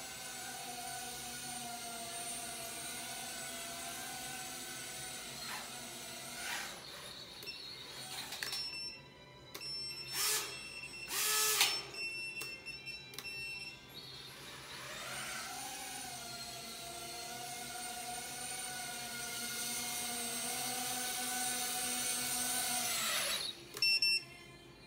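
Small 100mm FPV quadcopter's brushless motors and propellers whining in flight. The whine fades and gives way to a few short loud bursts about halfway through as the quad flies off down the aisle, then comes back strong and slowly rising in pitch, and cuts off suddenly near the end as it lands.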